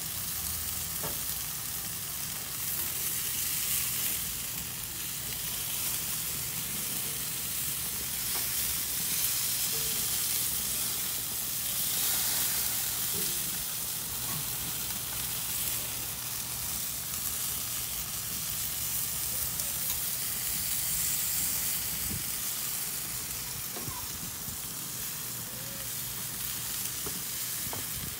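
Marinated chicken pieces and potato slices sizzling steadily on the grates of a four-burner gas grill on its lowest flame. Metal tongs handle the pieces now and then as the chicken is turned.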